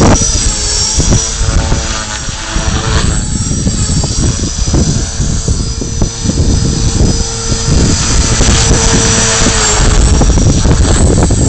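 Align T-Rex 450 Pro electric RC helicopter flying aerobatics: a steady high whine from its brushless motor and rotor blades, growing louder toward the end. Heavy wind noise buffets the microphone throughout.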